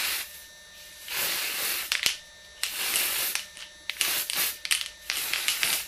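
MAC Studio Mist aerosol foundation can spraying in several short hissing bursts, the longest close to a second, with brief gaps between them as the mist is passed across the face.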